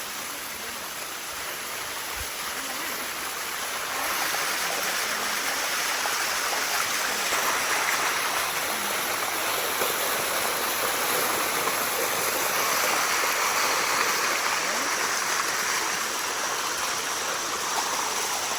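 Water running down the limestone cascade of Bua Tong 'Sticky' Waterfall: a steady rush that grows louder about four seconds in.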